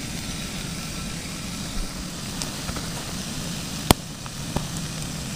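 Steady hiss of a camp stove burner with sausages sizzling in a frying pan, a few small ticks, and one sharp tap about four seconds in.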